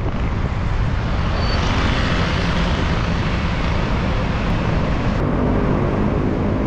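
Steady rushing noise of wind on an action camera's microphone and road traffic while cycling along a busy city road; the hiss thins a little about five seconds in.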